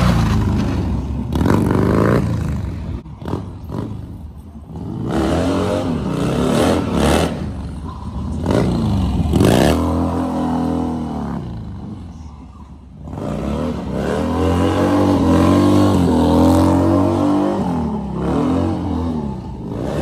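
Harley-Davidson V-twin motorcycle engine revving up and down repeatedly during stunt riding, its pitch rising and falling. It drops away twice, about three seconds in and again about eleven seconds in.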